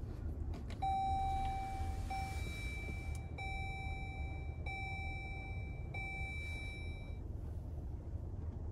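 Chrysler Pacifica's dashboard warning chime sounding about five times in a row, each a steady electronic tone roughly a second long, just after a couple of clicks from the start button being pressed.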